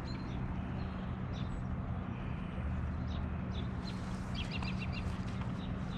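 Songbirds chirping, with a quick run of chirps about four and a half seconds in, over a steady low rumble and hiss.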